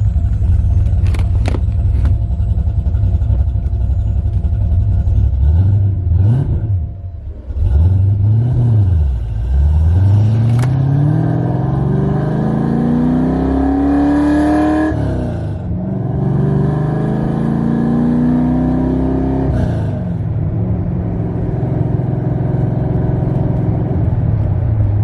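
1992 Ford Mustang Fox-body engine while driving: a steady low rumble, then the engine note rises through the revs several times, dropping back sharply at each gear change, and settles into a steady cruise near the end.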